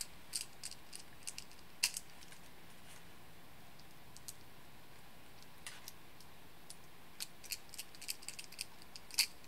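Light clicks and ticks of a small precision screwdriver driving a screw to fasten a hobby servo onto a laser-cut plywood piece. They come in irregular bunches, with a pause of a few seconds in the middle.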